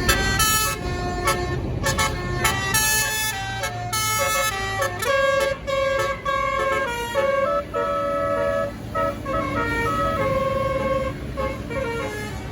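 Tour bus's 'basuri' telolet horn playing a tune: a quick run of short pitched notes stepping up and down, then longer held notes, over the low running of the bus engine.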